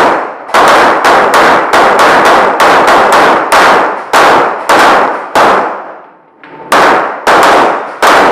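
Rapid pistol fire at about two shots a second, each shot ringing and echoing off the concrete walls of an enclosed range. There is a pause of about a second near two-thirds through before the shooting resumes.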